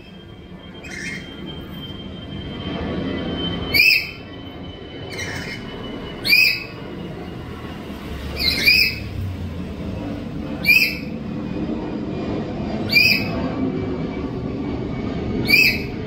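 Black-capped lory giving short, loud, shrill squawks, one about every two seconds, with fainter calls in between. A low rumble runs underneath.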